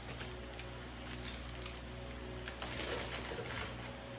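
Packing material and a fabric dust bag being handled, with scattered crackles and a longer rustle about two and a half seconds in.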